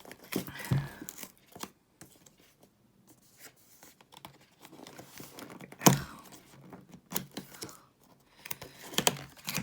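Packaging being handled and torn open: irregular rustling, crinkling and tearing, with a sharp knock about six seconds in.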